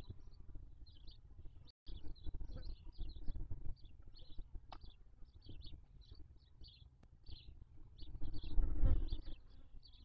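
Barn owl chicks shuffling in their nest box, a low rustling and bumping against the box floor that swells loudest about nine seconds in. Short high chirps repeat two or three times a second over it. The sound cuts out briefly just before two seconds in.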